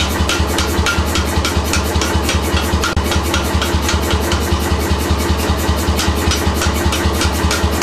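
Power hammer running, striking fast and evenly at about five or six blows a second over the steady hum of its motor.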